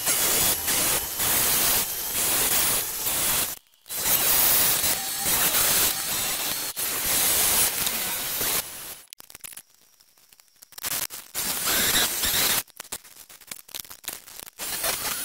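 Sieg X1 mini mill running, its end mill cutting a solid steel block with a dense, hissing noise. The noise cuts out briefly a few seconds in, goes nearly silent for a couple of seconds past the middle, then returns in fits.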